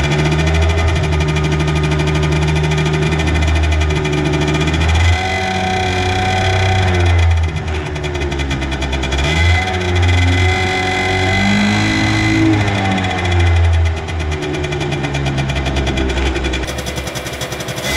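Peugeot Speedfight 2 scooter's two-stroke engine revving on the stand. It is held at steady revs for a few seconds at a time, dropping back and rising again several times.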